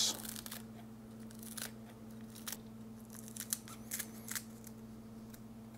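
Kitchen scissors snipping a bunch of fresh chives: a series of quiet, irregularly spaced snips.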